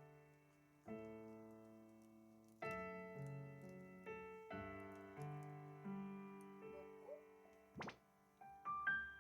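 Piano-style keyboard chords struck one after another, each ringing and fading. Near the end a brief sharp sound, then three quick rising high notes.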